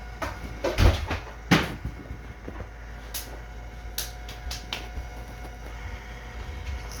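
Wyze robot vacuum running with a faint steady hum, under a scatter of sharp knocks and clicks, the loudest about a second and a half second later, with lighter clicks after.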